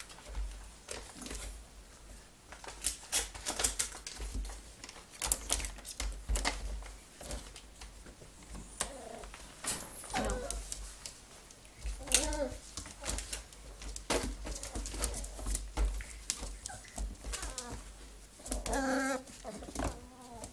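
Schnauzers scrabbling and playing around a plastic toy barn: irregular clicking and tapping of claws and paws on tile and plastic, with knocks of the toy. Short wavering cries come about ten seconds in, again about two seconds later, and near the end.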